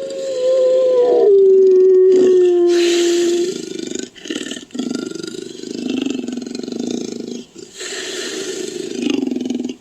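Made-up Lycaenops creature call mixed from wolf and leopard sounds: a howl-like held tone that drops in pitch about a second in and ends about three and a half seconds in, followed by rough, noisy roar-like calls broken by short pauses.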